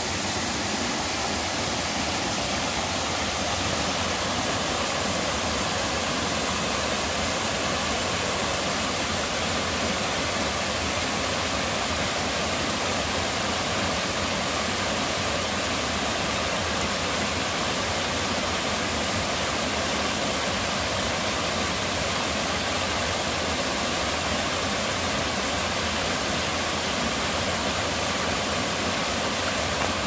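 Small mountain waterfall and stream, running full after rain, with a steady, unchanging rush of water.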